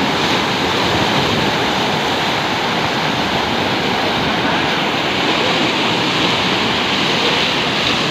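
Swollen, muddy river in spate rushing and churning over waves and foam: a loud, steady, unbroken water noise.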